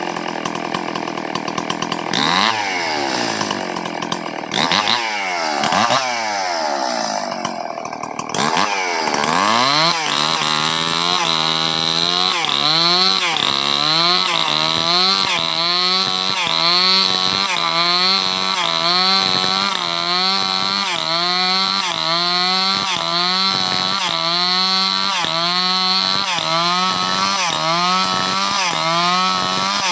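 Stihl 070 two-stroke chainsaw ripping lengthwise through a sengon wood beam. It is revved up and down several times in the first eight seconds. Then it runs steadily under cutting load, its pitch dipping and recovering in a regular rhythm about once every three quarters of a second.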